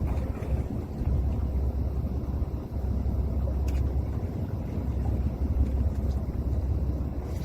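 Steady low rumble aboard a small fishing boat at sea, with no speech.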